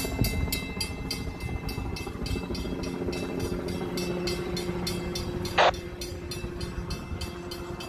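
Fire apparatus running on a response: a steady engine drone with a fast, even ticking of about four a second. About five and a half seconds in comes one short, loud burst of noise, the loudest thing heard.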